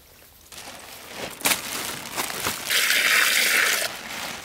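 Water splashing and gushing, with a sharp splash about one and a half seconds in and a louder rush of pouring water lasting about a second just past the middle.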